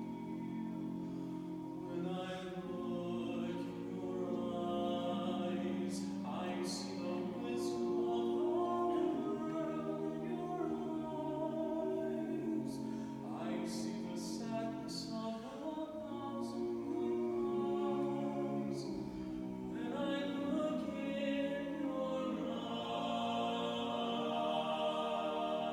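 Barbershop group singing a cappella in close harmony: several voices sustaining chords together, with sung words and crisp 's' sounds.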